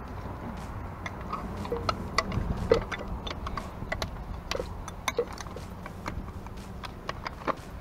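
Irregular light clicks and taps of small metal hardware being handled and fitted at a motorcycle's front fork while a headlight bracket is mounted, a few clicks a second and one sharper knock about three seconds in.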